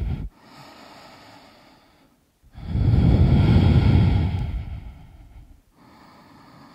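A woman breathing deeply and audibly. A soft breath is followed, about two and a half seconds in, by a long, loud breath, and another soft breath comes near the end.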